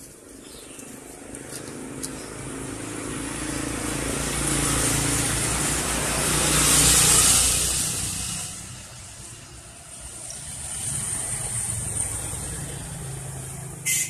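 A motor vehicle passing: engine hum and road noise swell to a peak about seven seconds in and fade away, then a second vehicle rises more softly near the end.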